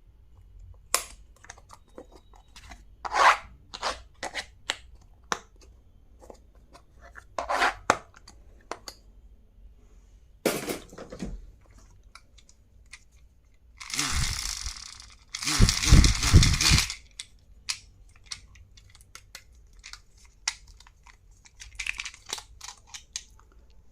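Stationery packaging being unpacked by hand: scattered clicks and taps of plastic items being handled, then a few seconds of wrapping being torn and crinkled about two-thirds of the way through, the loudest part.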